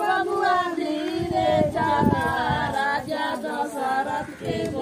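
A group of women singing a folk wedding song together, unaccompanied, several voices overlapping.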